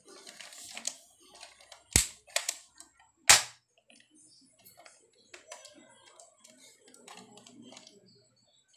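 Plastic toy pump-action rifle being worked and handled: two sharp, loud snaps about a second and a half apart, the second the loudest, with lighter clicks between and small plastic clicks and rattles after.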